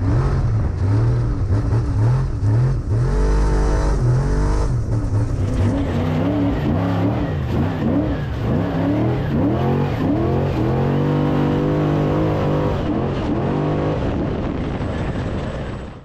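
Off-road race vehicle's engine revving hard, its pitch rising and falling again and again as the throttle is worked, with a heavy low rumble about three to five seconds in.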